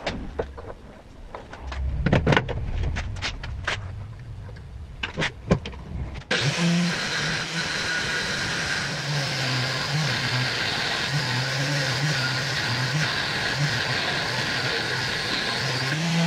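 Clicks and knocks of metal tooling being handled on a milling machine, then, about six seconds in, the machine's spindle running with a twist drill boring into a metal workpiece: a steady hissing cutting noise over a low, wavering hum.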